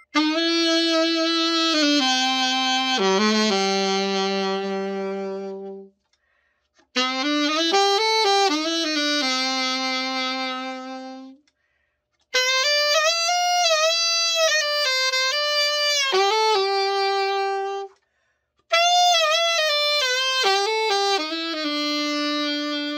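Yanagisawa Prima A-5 alto saxophone being play-tested after a full overhaul. It is played in four short phrases with brief pauses between them, each phrase ending on a long held note.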